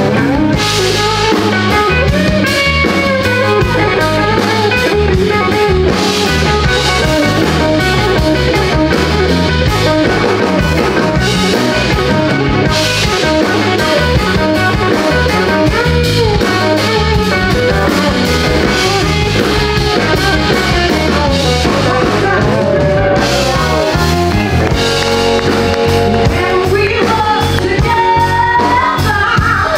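Live blues band playing, with drum kit and guitar and a lead melody line that bends up and down over a steady beat.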